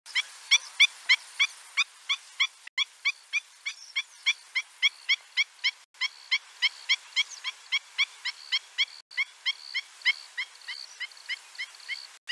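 Black-winged stilt calling: a long run of short, sharp, high yelping notes, about four a second.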